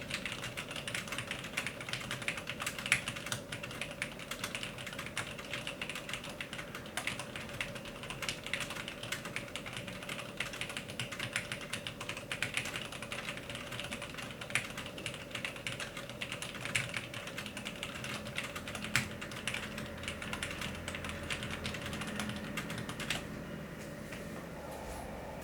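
Steady, fast typing on a Cherry G80-1800 mechanical keyboard with linear Cherry MX Black switches and GMK Olive keycaps: a dense run of irregular keystroke clacks. The typing stops about two seconds before the end.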